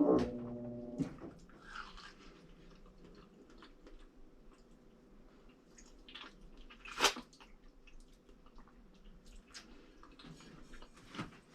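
Samsung washing machine spinning, which the owner says it does without having rinsed: a faint steady motor hum with scattered small clicks. A brief louder pitched hum lasts about a second at the start, and one sharp click comes about seven seconds in.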